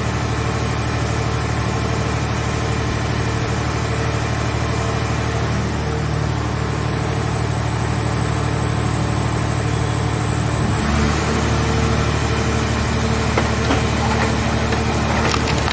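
Car shell baler's power unit running steadily, with a thin high whine over the hum. About 11 s in the hum changes pitch and the sound grows slightly louder and rougher, as the machine comes under load, with a few sharp clicks near the end.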